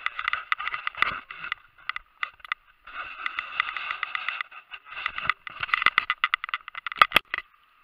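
Crackling rustle of dry, matted grass being trodden and brushed underfoot, in uneven patches with short pauses. Two sharp clicks about seven seconds in.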